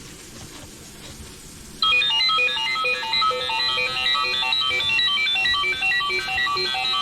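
Mobile phone ringtone: a quick run of bright, chime-like melodic notes that starts suddenly about two seconds in and keeps repeating, after a short pause in the same tune.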